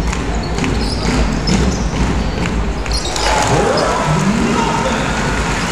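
Basketball being dribbled on a hardwood court, bouncing about twice a second through the first half, over the steady noise of an arena crowd.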